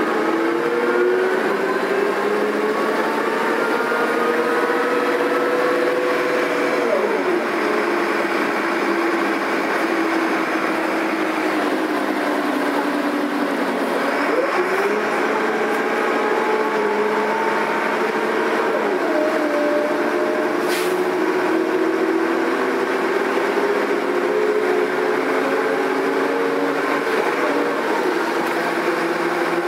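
Engine of a Karosa B941 articulated city bus running under way. Its pitch climbs slowly and drops sharply about four times, with a fainter whine above it.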